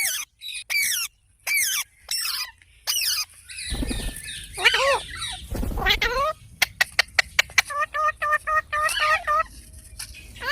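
Green parrot calling: a string of short, shrill calls that glide in pitch, then a quick run of clicks and a series of rapid repeated notes.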